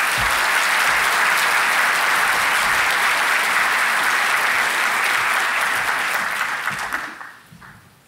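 A large audience applauding, the clapping dying away about seven seconds in.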